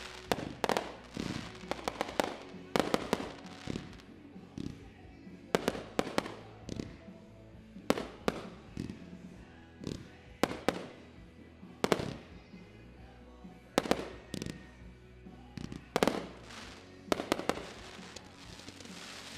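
Aerial firework shells bursting one after another, a sharp bang every second or two, each trailing off in a short echo. The bangs stop shortly before the end.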